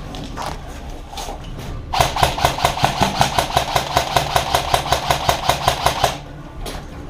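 Airsoft gun firing a steady string of shots, about six a second for roughly four seconds, after a couple of single shots.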